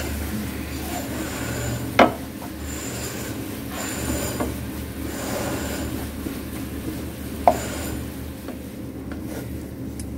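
Wooden spatula scraping and stirring a thick bhringraj, curry-leaf and neem paste frying in coconut oil in a non-stick pan, in steady repeated strokes, as the oil starts to separate from the drying leaves. Two sharp knocks, one about two seconds in and one about three-quarters of the way through.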